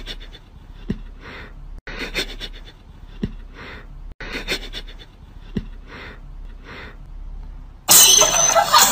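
A cat hissing in short breathy bursts, again and again, as it is prodded, with a few light clicks between them. Loud music cuts in near the end.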